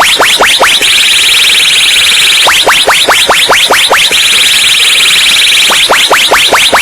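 Electronic DJ sound-check effect: fast rising synth chirps, about five a second, alternating with a steady high buzz held for a second or two, with no beat underneath.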